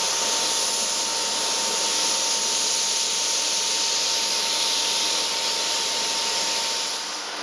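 Sandblaster nozzle blasting abrasive onto a steel trailer deck: a steady, loud hiss of rushing air and grit with a thin steady tone under it, easing off slightly just before the end.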